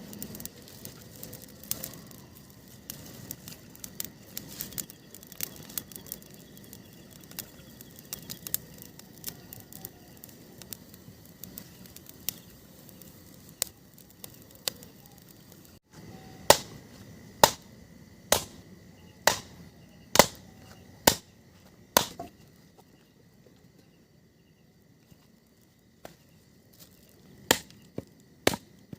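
Small crackles and snaps of a newly lit campfire. After a cut, about halfway through, come sharp wood-chopping strikes about once a second, a pause, and then a few more strikes near the end.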